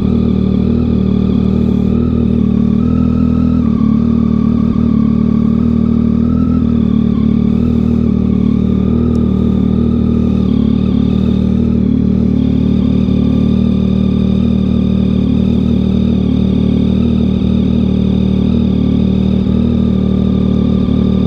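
2022 Yamaha XSR900's three-cylinder engine idling steadily through a Kelpi Custom Moto shorty exhaust, with a slight waver in pitch a few seconds in. The owner finds the idle a little weird and suspects there could be an exhaust leak.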